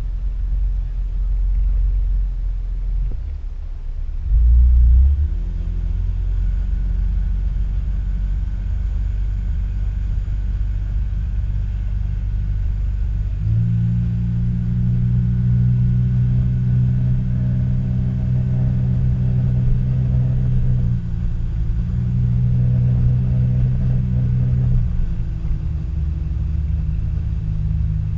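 Small boat's motor running under way over a low rumble of water and wind. It steps up in speed about 13 seconds in, dips briefly near 21 seconds and eases back a few seconds later. A short low thump comes near the start.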